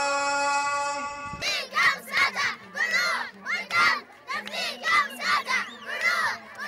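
Music with long held notes ends suddenly about a second in. It gives way to a crowd of children shouting and chanting in loud, choppy bursts.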